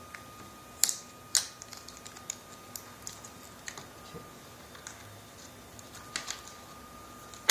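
Scattered light plastic clicks and ticks from hands handling a new laptop LCD panel and peeling its protective film. Two sharper clicks come about a second in.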